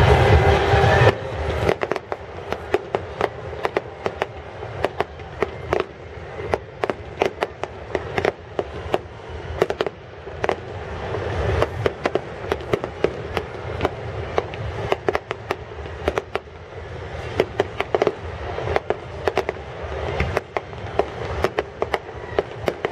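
Fireworks going off: many sharp bangs and crackles in irregular quick succession, several a second. A loud steady noise cuts off about a second in.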